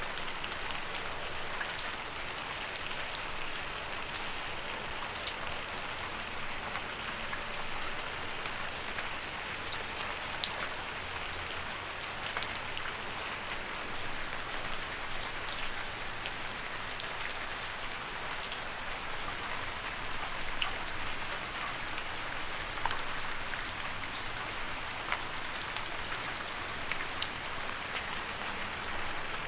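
Steady rain falling, an even hiss with many individual drops ticking sharply on a nearby surface.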